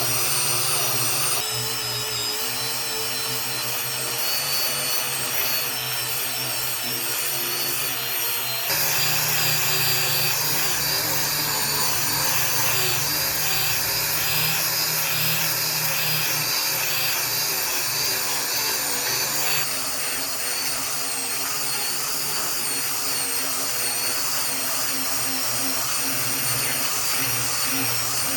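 Electric power tools working wood, their motors running steadily. The sound changes abruptly about 1.5, 9 and 20 seconds in, from one tool or cut to the next.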